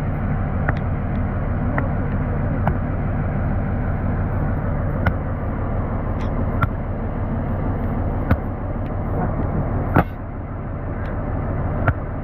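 Diesel locomotive engine idling steadily, with sharp single knocks every second or two; the loudest knock comes about ten seconds in.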